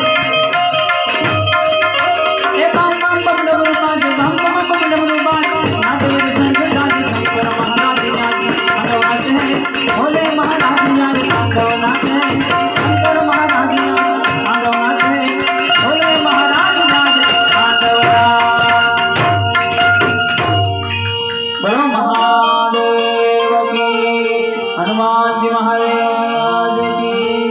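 Instrumental music from a devotional Shiva song: drums and rattling percussion under melodic instruments. About three-quarters of the way through, the drums drop out and held, steady keyboard tones carry on.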